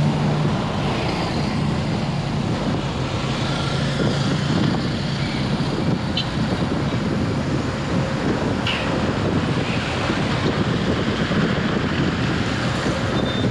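Steady road noise from a moving car in traffic: tyre and wind noise with the hum of surrounding vehicles. A low engine hum is present near the start and fades out after a couple of seconds.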